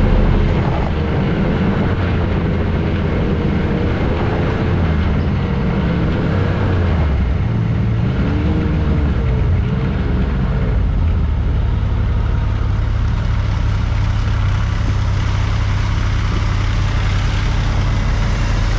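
Snowmobile engine running while riding, its pitch wavering up and down with speed for about the first ten seconds, then settling into a steady low idle.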